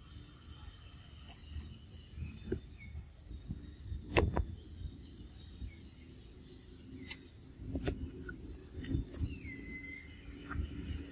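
Steady high-pitched chirring of insects such as crickets, over low rumbling and rustling, with a few sharp clicks and knocks, the loudest about four seconds in. About nine seconds in comes a short call that drops in pitch and then holds.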